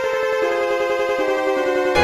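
Synthesized MIDI ringtone tune for the Fly X3 mobile phone: one long held note over a rapid pulsing accompaniment, with lower notes stepping down twice.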